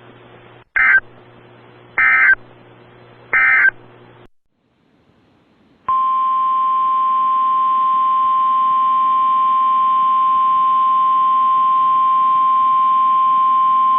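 Emergency Alert System end-of-message: three short digital data bursts about a second apart. After a short gap, a steady weather radio alert tone of about 1050 Hz sounds for about nine seconds, ahead of the next warning.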